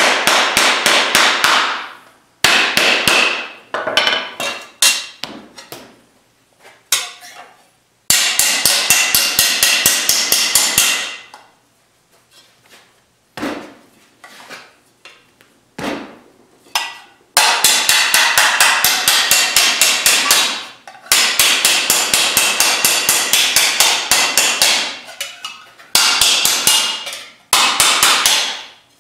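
Hand hammer and mallet blows on a 16-gauge cold-rolled steel fender panel laid over a sandbag, roughing in the fender shape. The blows come fast, several a second, in runs of one to four seconds with short pauses between, each with a bright metallic ring.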